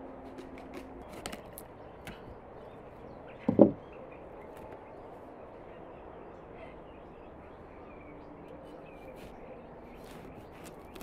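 A knife working on a large whole pumpkin: a few light clicks, then one heavy thump about three and a half seconds in, then only a faint steady background.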